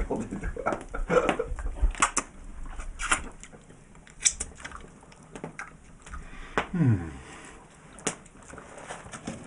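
Scattered clicks and knocks of hard objects being handled, with a short pitched sound that slides steeply down about seven seconds in.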